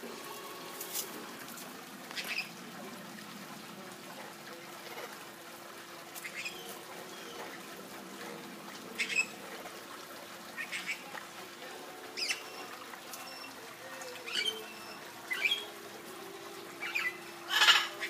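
Red-lored Amazon parrot giving short squawks and chirps, about a dozen scattered calls, the loudest near the end, over a faint steady hum.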